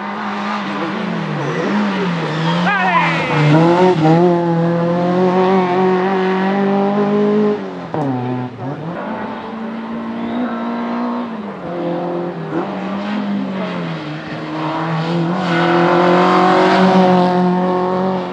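Race car engine at high revs on a hill-climb run. The revs drop sharply about eight seconds in, then climb again and swell to a peak near the end.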